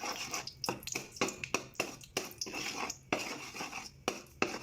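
Metal utensil clinking and scraping against a cooking pan while sugar is stirred in hot oil, a rapid, irregular series of sharp clinks.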